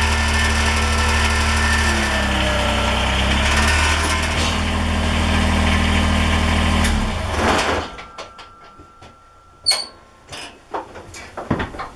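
Kubota BX23S compact tractor's three-cylinder diesel engine running steadily, then stopping about seven seconds in. After that, a few light clicks and knocks, with one sharper knock near the ten-second mark.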